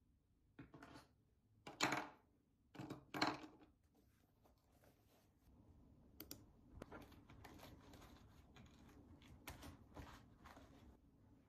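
Quiet desk sounds: a few short rustling knocks in the first seconds, then a mouse click and soft typing on a laptop keyboard.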